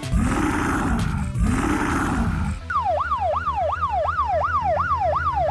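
Two long roars, one after the other. About halfway through, an emergency siren starts up in a fast yelp, sweeping up and down about three times a second.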